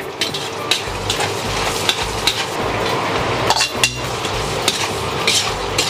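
Shrimp stir-frying in a metal wok: a steady sizzle, with a metal ladle scraping and clanking against the wok again and again as it tosses them.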